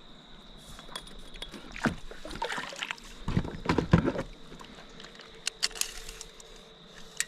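Scattered knocks and splashy bumps on a kayak as a freshly caught Murray cod is laid down and handled for measuring, heaviest around the middle.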